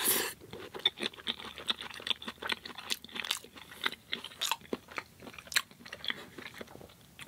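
Close-up chewing of a mouthful of loaded tater tots: a steady run of soft crunches and wet mouth clicks.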